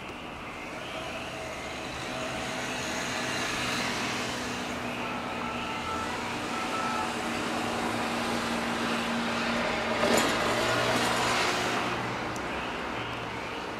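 Mercedes Sprinter ambulance van driving up the street, its engine and tyres growing louder as it approaches and loudest about ten seconds in.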